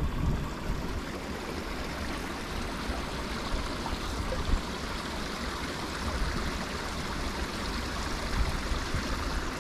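Small spring-fed mountain creek running and trickling over mossy rocks in a steady, even rush of water.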